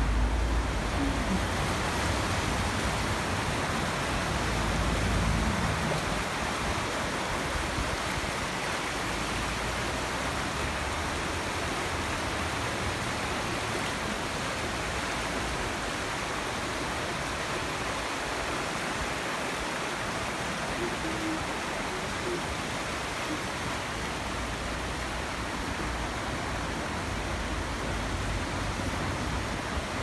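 Steady rush of a fast-flowing stream and waterfall. Low wind buffets the microphone in the first few seconds.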